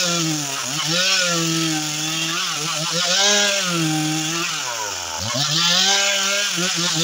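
Stihl two-stroke chainsaw at high revs ripping a log lengthwise, its engine note sagging and recovering as the chain loads in the cut. About five seconds in it bogs down deeply, then revs back up.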